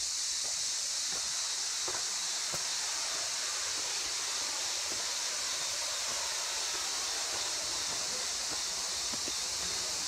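A steady high-pitched hiss with faint footsteps on a pebble-mosaic path.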